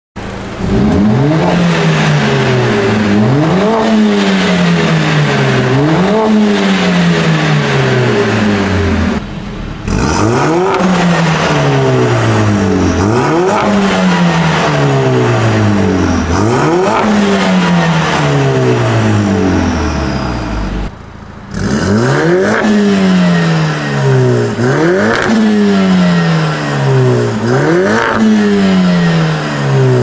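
Mercedes-AMG CLA45 S's turbocharged 2.0-litre four-cylinder free-revved over and over through a Fi Exhaust valvetronic catback and catless downpipes: each rev a quick rise followed by a slower fall, about one every two seconds. Two short gaps break the run of revs.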